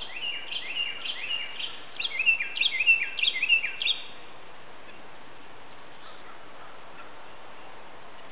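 Northern cardinal singing: two phrases of quick, repeated down-slurred whistled notes, the second phrase louder, ending about four seconds in, followed by a steady faint background hiss.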